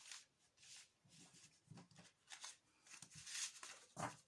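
Tarot cards being gathered and shuffled by hand: a run of soft, quick rustles and light card slaps, a little louder about four seconds in.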